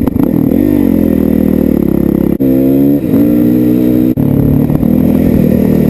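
Dirt bike engine running under throttle, its pitch dipping and rising as the revs change, with a sharp rise in revs about two and a half seconds in.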